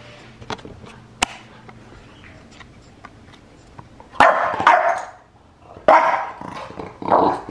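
Young English bulldog barking in three short bouts, about four, six and seven seconds in, after a few quieter seconds with small clicks.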